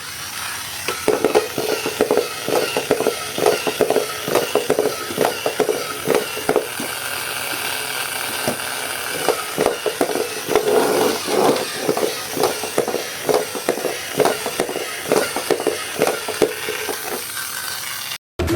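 Toy packaging being handled and opened by hand: a dense, irregular run of plastic rustling, crackling and clicks that cuts off abruptly near the end.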